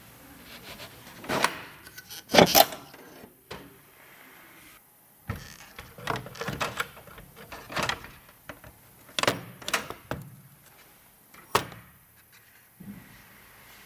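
Irregular clicks and knocks of computer parts being handled and fitted during a PC build, plastic and metal tapping and snapping together, with the loudest pair of knocks about two and a half seconds in.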